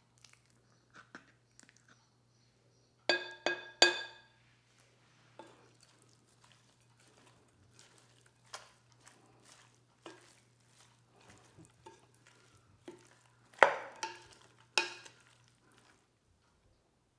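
A utensil clinking and scraping against a ringing dish: three quick clinks about three seconds in, soft taps and scrapes after, then two more clinks later on.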